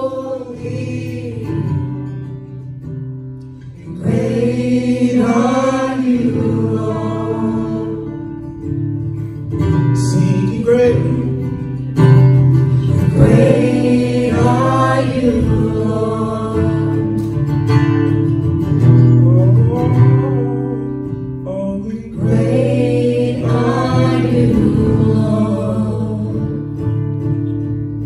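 Live worship song: an acoustic guitar playing under voices singing, the sung lines coming in phrases with guitar-led stretches between them.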